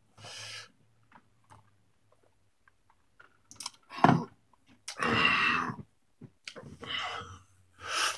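A man drawing on a cannabis blunt: a run of breathy puffs and drawn breaths with faint clicks between. The loudest drags come about four and five seconds in.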